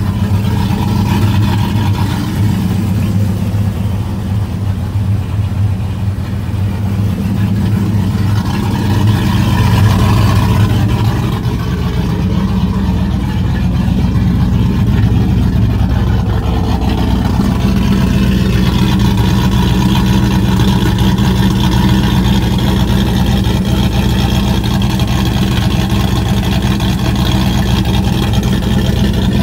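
Car engine idling after a cold start, the test of whether fresh high-zinc oil has quietened the lifter noise it used to make when cold. It runs steadily, its note shifting slightly between about ten and eighteen seconds in.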